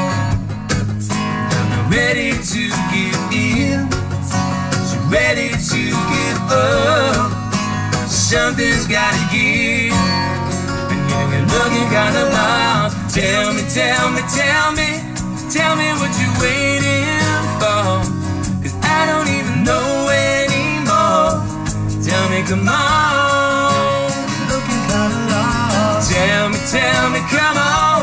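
Two acoustic guitars strummed together, accompanying a man singing a song.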